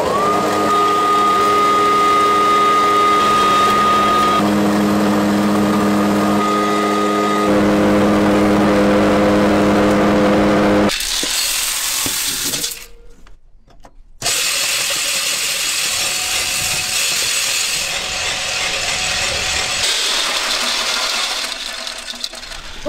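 Electric grain grinder motor spinning up with a quickly rising whine, then running with a steady high whine and hum. About halfway through, after a brief dip, the sound becomes a steady noisy rushing of machinery working a load of black beans.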